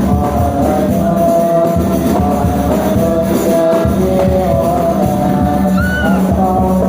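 A child singing an Islamic devotional song in praise of the Prophet, a wavering, ornamented melody over a steady low drone and percussion.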